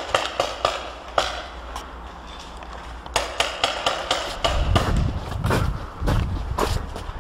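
Paintball markers firing: sharp pops at irregular intervals, with a quick string of shots about three seconds in. Low handling and movement noise joins in the second half as the camera moves.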